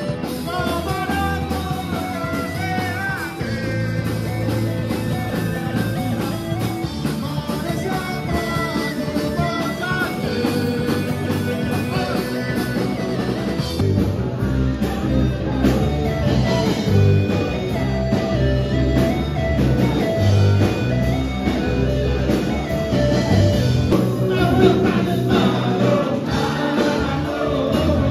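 Rock song with guitar, drums and a singing voice.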